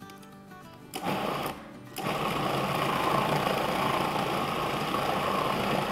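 Food processor grinding cooked, shredded meat: a short pulse about a second in, then, after a brief pause, the motor runs steadily.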